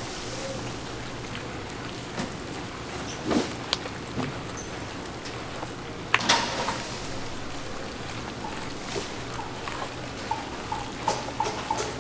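Food-stall kitchen sounds: a steady machine hum and a faint hiss, with scattered clatters and a sharp knock about six seconds in. Near the end come quick rhythmic knocks, about three a second.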